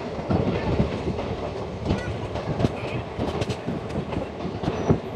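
Passenger coaches rolling past close by, their steel wheels clattering over rail joints in an irregular run of knocks over a steady rumble.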